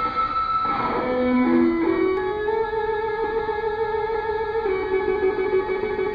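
Solo electric guitar played through a small amplifier, carrying a slow melody of long sustained notes that step up and down in pitch, dipping to lower notes about a second in before climbing back up.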